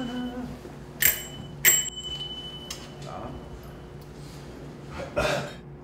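Bicycle bell on a Bicing shared bike rung twice, about a second in: two bright dings half a second apart, each with a ringing tail. A short noisy rush follows near the end.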